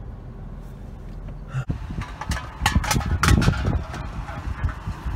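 Low steady hum inside a vehicle, then from about a second and a half in a busy run of clunks, clicks and rustling: a car door opening and people climbing out.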